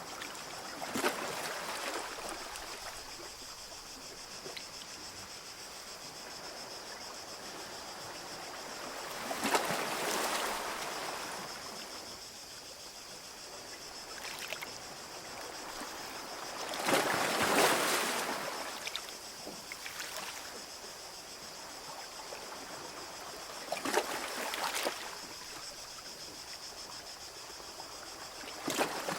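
Small sea waves washing onto a beach, a soft surge of surf about every seven seconds over a steady wash of water. A steady high-pitched hiss runs underneath.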